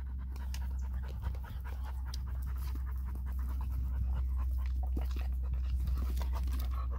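Adult Vizsla panting quickly and evenly, mouth open, over a steady low hum.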